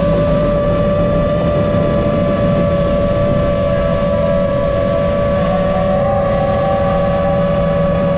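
The brushless motors and propellers of a 7-inch long-range FPV quadcopter (T-Motor F90 1300KV) whine steadily in cruise, over wind rumble on the onboard camera's microphone. The pitch drifts slightly, and a second, higher motor tone joins for a second or two past the middle.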